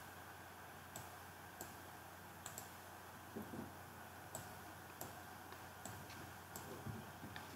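Computer mouse clicking about a dozen times at irregular intervals, faint, over a steady low electrical hum.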